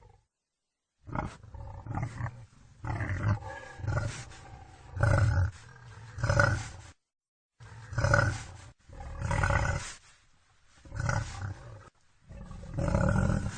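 Wild boar calling in a run of short, low grunts, each under a second, broken twice by a brief dead silence.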